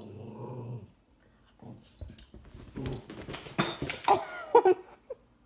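A dog growling and whining, with a few sharp knocks; the loudest whines come near the end.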